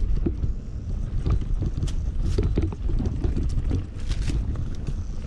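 Wind buffeting the camera microphone while a Commencal Meta Power SX e-mountain bike is ridden fast along a dirt singletrack. Tyres run over the ground with frequent sharp ticks and rattles from the bike over the bumps. The rumble eases briefly near the end.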